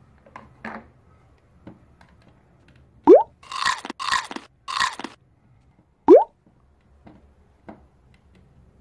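Cartoon-style eating sound effects: a quick rising whistle-like sweep, then three crunchy chomps about half a second apart, then another quick rising sweep, as the toy head eats a play-dough waffle.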